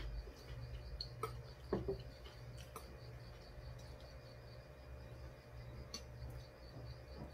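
Quiet eating sounds at a table: a few light clicks and knocks of chopsticks against bowls and dishes, the loudest about two seconds in, over a steady low hum and a faint high chirping that pulses several times a second.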